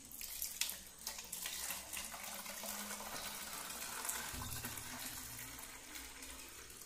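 Water poured from a steel tumbler into a plastic bottle, a steady trickling splash as the bottle fills.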